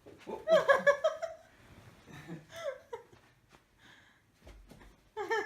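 People laughing and giggling in short fits, loudest about half a second to a second in, with more laughter near the end.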